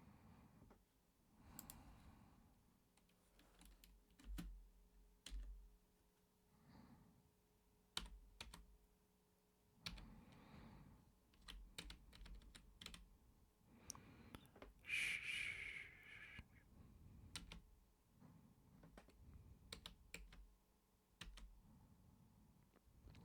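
Soft, irregular typing on a computer keyboard, with scattered keystroke clicks. A short, louder hiss comes about fifteen seconds in.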